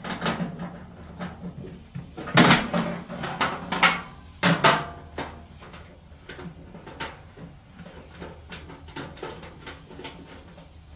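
Quarter-inch drive ratchet with a 7/16 socket loosening the bolts that hold the blower motor to the blower housing: a run of small clicks and metal clanks, loudest in a few ringing knocks about two and a half and four and a half seconds in.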